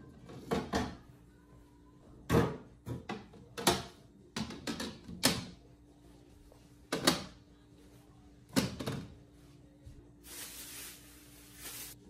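Food storage containers being set down on refrigerator shelves: a series of separate clunks and knocks, with a short rustling hiss near the end.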